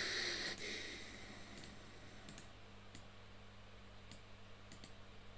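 Faint computer mouse clicks, a few scattered single clicks, over a steady low hum; a brief soft rush of noise right at the start is the loudest thing.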